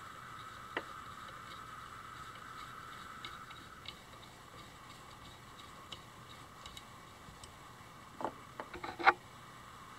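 Light metallic ticks and taps of a screwdriver working inside an opened electric trolling motor's housing, around the brush plate. There is a faint steady hum in the first few seconds. Near the end comes a quick cluster of sharper clicks, with one louder knock about nine seconds in.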